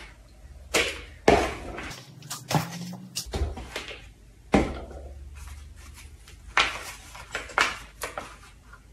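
Plastic plant pots being handled on a wooden table: scattered short knocks and taps as a plastic pot is set down, then the crackle of a small plastic nursery pot being squeezed to loosen a seedling.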